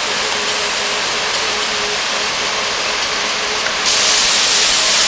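Waterfall's steady rush of falling water. About four seconds in it turns abruptly louder and hissier.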